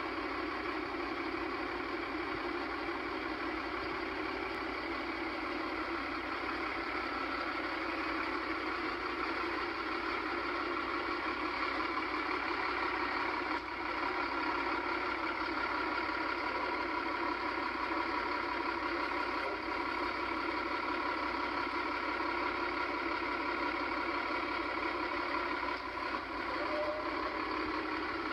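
Bering cab-over dump truck's diesel engine idling steadily, heard thin, without its deep rumble.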